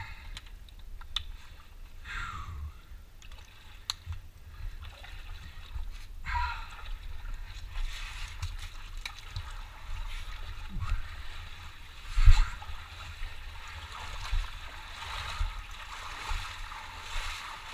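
Feet wading through shallow muddy water, with repeated splashing and sloshing that gets busier after the first several seconds. One louder thump comes about twelve seconds in.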